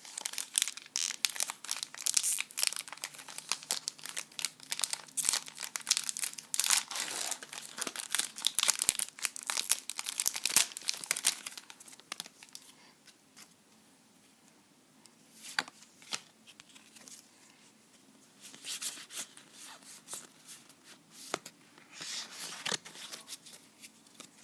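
Foil wrapper of a Pokémon card booster pack being torn open and crinkled. Dense crackling for about the first twelve seconds, then much quieter, with a few isolated clicks and short crinkles.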